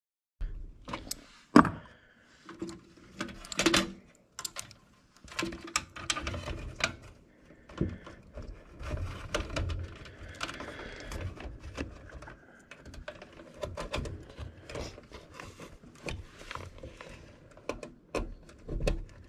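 Metal clinks, knocks and rattles of a wrench and hardware against a blower motor's mounting bracket inside a sheet-metal blower housing, mixed with scattered clicks and rustling as wires are handled. The loudest sharp knock comes about one and a half seconds in.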